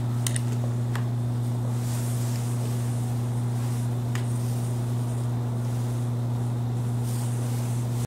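Steady low electrical hum, with a weaker tone an octave above it. Three faint clicks, the last about four seconds in.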